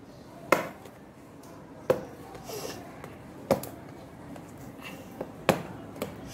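Hands handling and opening a small cardboard retail box: several sharp taps and clicks spaced a second or two apart, with a faint rustle between.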